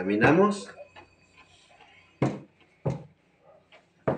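A rolling pin knocking on the table while dough is rolled out: three short sharp knocks about two, three and four seconds in.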